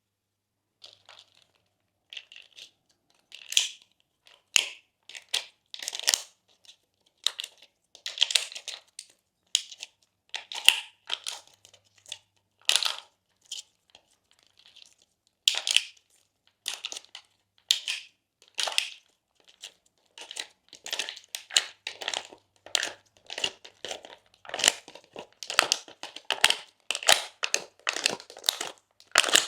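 Slime being squished and worked by hand, giving irregular crunchy crackles and squelches. They start about a second in and come thicker and faster near the end.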